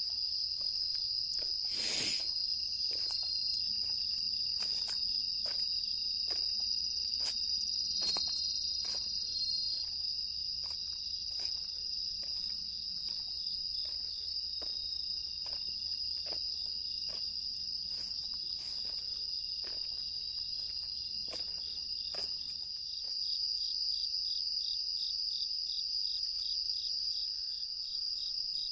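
Night-time chorus of crickets singing: a steady, high-pitched trilling that never stops. Under it, footsteps tread along a path at an even walking pace for most of the time, then stop near the end.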